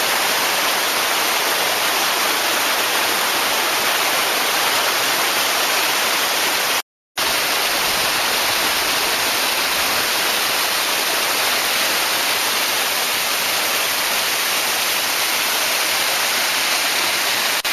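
Waterfall pouring, a loud, steady, even rush of water. The sound cuts out completely for a split second about seven seconds in, then the same rush carries on.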